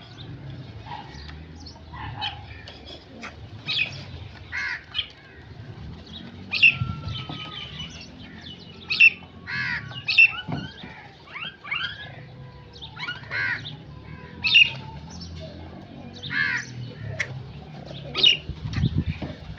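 Crows cawing, many short harsh calls repeating and overlapping about every second, with a few thinner gliding calls among them.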